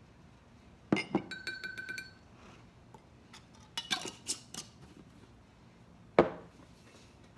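A measuring spoon clinking against a glass jar while sauce is measured in: one sharp clink that rings briefly about a second in, then a few lighter clinks around four seconds. A loud single knock follows a little after six seconds.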